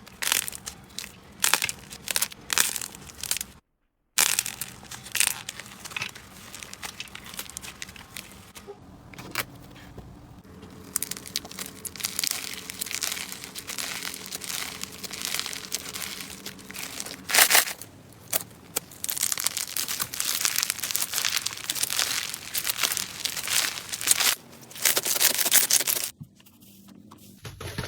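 Hands squeezing, stretching and poking slime: a dense run of sticky crackles, pops and squelches that swell and fade, with a brief silence about four seconds in.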